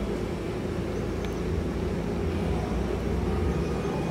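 Single-engine propeller light aircraft flying past, its piston engine giving a steady drone.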